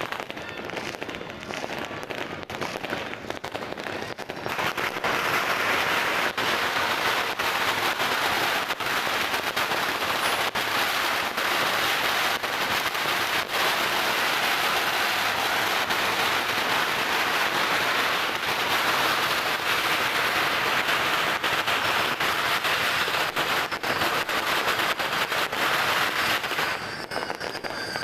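Fireworks and firecrackers going off in a steady barrage of pops and cracks. About four seconds in it thickens into a dense crackling hiss, which thins out again near the end.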